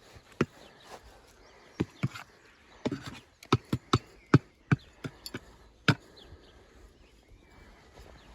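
About a dozen sharp, irregular knocks and taps over the first six seconds, from hand work levelling off loose compost in a planting hole, then little after.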